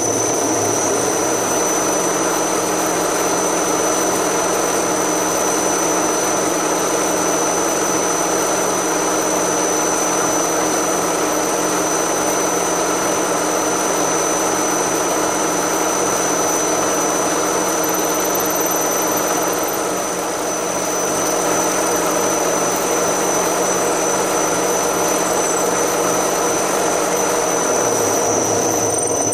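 Milling machine spindle running with a twist drill boring into a clamped metal block: a steady machine hum with cutting noise and a thin high whine, easing slightly about two-thirds of the way through.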